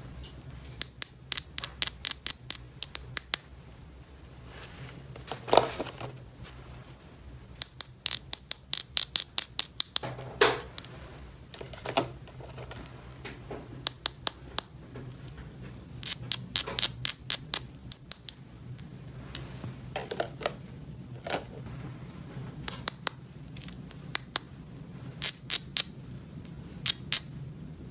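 Quick runs of sharp clicks and small scrapes from hands handling small plastic toy pieces and their packaging, with a few duller knocks, over a steady low hum.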